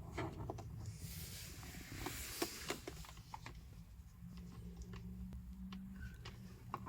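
Faint handling noises: scattered light clicks and taps, with a brief rustle about a second in, as the small throttle controller unit and its cable are moved about and tried against the dash trim.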